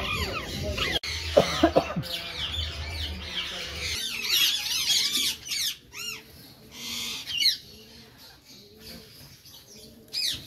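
Birds calling: many short chirps that rise and fall in pitch, coming thickest around the middle and thinning out near the end, over a low rumble in the first few seconds.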